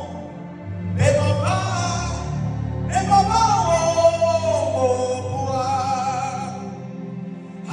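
A singer with instrumental backing. Two sung phrases come in about one and three seconds in, with long held notes that waver in pitch.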